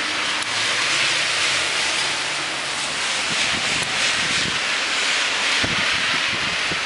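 Steady hiss of wet snow and sleet falling outdoors, with low gusts of wind buffeting the microphone in the second half.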